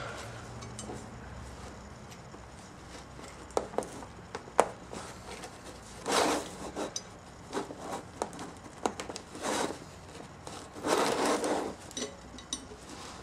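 Metal parts of a Victor induction electric phonograph motor clicking and scraping as its stiff governor pins are worked and pushed out. There are scattered sharp clicks, one loud one about four and a half seconds in, and a few short scraping bursts later on.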